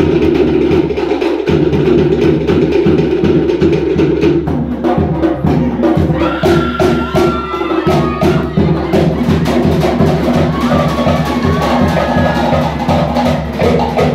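Cook Islands drum ensemble playing a fast, driving rhythm: sharp wooden slit-drum strikes over deep bass-drum beats.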